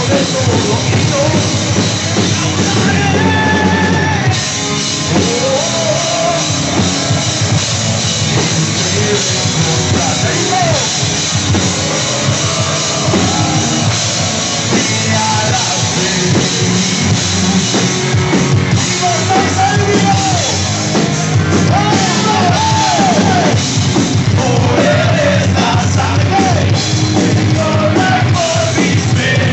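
Live rock band playing loud, with distorted guitars, drum kit and a singer. The sound changes abruptly about four seconds in.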